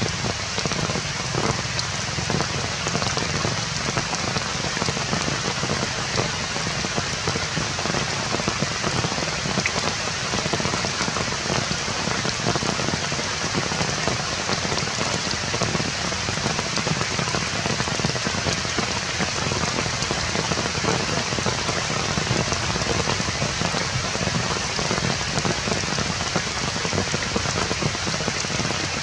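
Steady rain falling, a dense unbroken hiss of many drops hitting surfaces, with no let-up.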